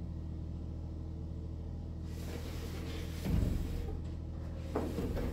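Building-site work sounds: a steady low mechanical hum, a hiss starting about two seconds in, then a heavy thump followed by a sharper knock, as lumber is handled during floor-joist installation.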